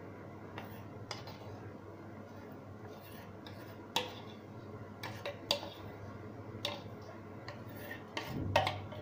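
Metal spoon scraping thick besan batter out of a steel bowl into a metal kadhai, with about nine short, sharp clinks of spoon against metal spread through it.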